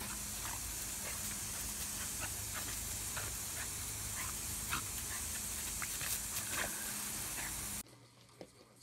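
Garden hose spray nozzle hissing steadily as its water jet plays across a lawn, with a few faint short dog sounds mixed in. The hiss cuts off abruptly near the end.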